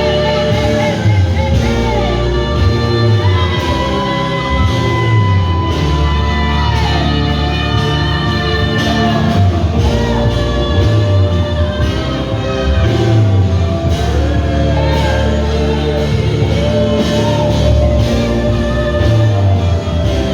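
Live church worship music: a band with sustained keyboard and bass, and voices singing long, held, gliding notes with some shouts, in a large hall.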